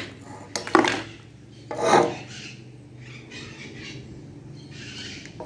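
Kitchen knife sawing and scraping through a large round of fresh homemade cheese on a glass plate, slow and hard going because the round is so big. A few sharper knocks and scrapes come in the first two seconds, then a softer steady rasp of the blade.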